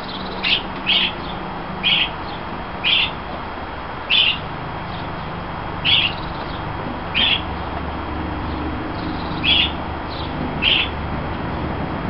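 A bird calling with short, high chirps, about nine of them at irregular intervals of one to two seconds, over a steady hiss.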